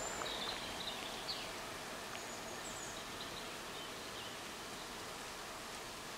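Outdoor woodland ambience: a steady rushing noise that slowly fades, with a few short bird chirps over it in the first half.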